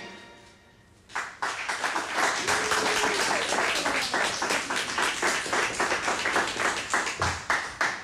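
Applause from a small group, the separate claps distinct, starting about a second in after the last note of the song dies away.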